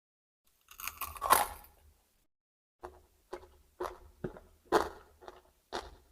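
Close-miked crisp bite into a raw vegetable, a loud crackling crunch about a second in, followed by steady chewing with short crunches roughly twice a second.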